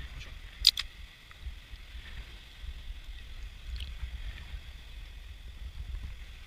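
A drink can's pull tab snapped open, one short sharp crack about a second in, over a steady low rumble.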